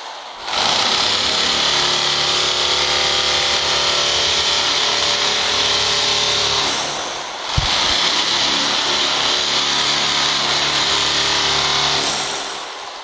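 Metabo hammer drill fitted with a flat scraper chisel, running against a concrete floor to chip off old carpet glue. It starts up just after the beginning, briefly cuts out about seven seconds in with a sharp click as it comes back on, and winds down near the end.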